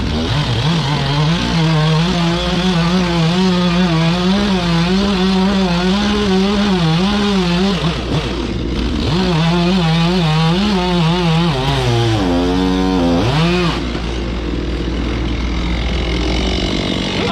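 Chainsaw cutting through a timber pile head, its engine note wavering up and down under load. It breaks off briefly about eight seconds in, then dips sharply and recovers near thirteen seconds, and a lower steady engine hum carries on.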